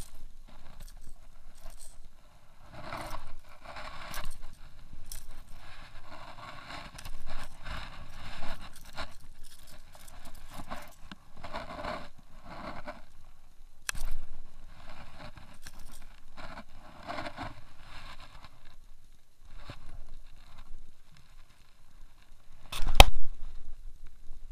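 Irregular rustling, scraping and crackling of dry grass and clothing while a caught bass is handled and the lure is worked on. There is a sharp knock about halfway through and a louder one near the end.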